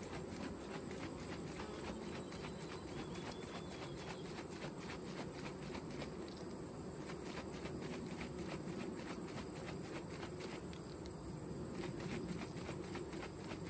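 Varroa Easy Check mite-wash jar being shaken by hand, the washer fluid and bees sloshing inside in a quick, regular rhythm, over the steady hum of honey bees at the open hive.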